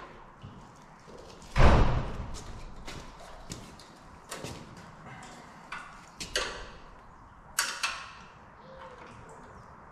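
Hand work on a mower's light fitting and its bracket: scattered knocks and clicks as the old lamp and wiring are handled, with one heavy thud about one and a half seconds in.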